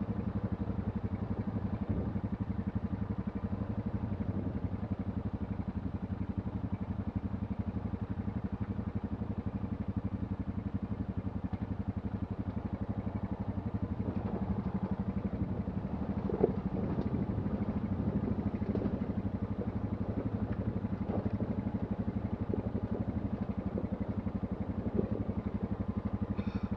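ATV engine running steadily at low revs as the machine creeps down a steep slope. A few light knocks and clatters come in from about halfway through.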